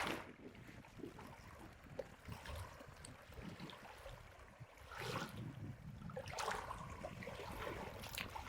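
Faint flowing river water, with a few soft rustles about five and six and a half seconds in.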